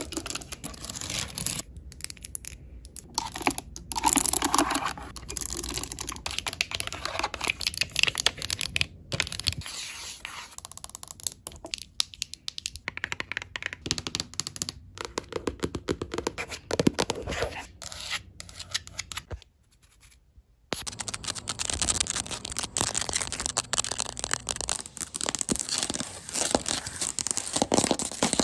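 Fast ASMR tapping and scratching on assorted objects. After a brief pause about two-thirds of the way through, it changes to rapid, dense fingernail scratching and tapping on a floor.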